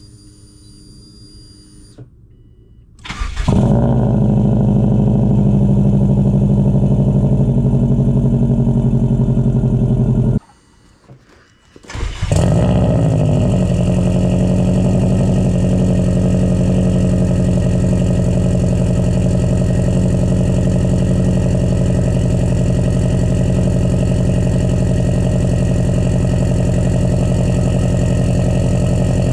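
Subaru WRX's turbocharged flat-four cold starting through an aftermarket catback exhaust: it cranks and catches about three seconds in and idles loudly. It cuts off at about ten seconds, starts again about two seconds later and idles steadily.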